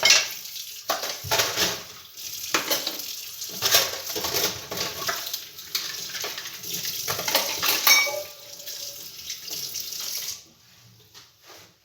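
Tap water running into a kitchen sink while dishes are washed by hand, with repeated clatter and clinks of dishes and cutlery, one of them ringing briefly. The water and clatter stop about ten seconds in.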